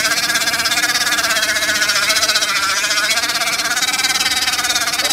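Modified Zero 10X electric scooter doing a stationary burnout: the rear tyre spins against the pavement with a continuous squeal whose pitch wavers.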